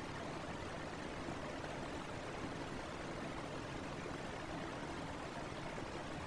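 Steady fan noise: an even whooshing hiss at a constant level, with no tones, clicks or changes.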